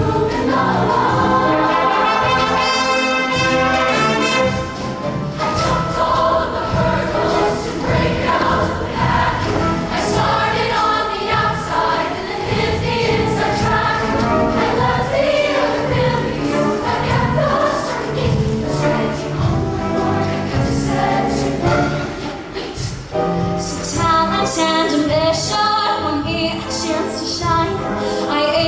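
A show choir singing in harmony over its live band, continuously.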